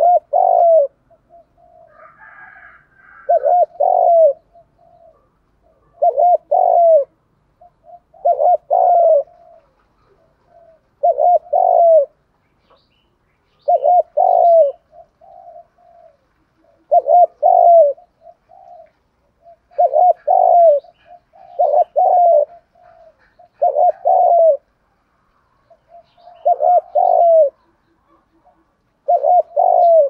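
Caged spotted dove giving its 'thúc gù' cooing song, the call a decoy dove uses to lure wild spotted doves. Each phrase is a soft lead-in note followed by a loud doubled coo, repeated every two to three seconds.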